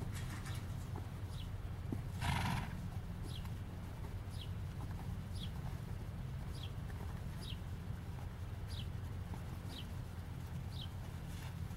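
Standardbred gelding trotting on a dirt arena under a rider, with regular light ticks throughout. About two seconds in, the horse gives one short, loud snort.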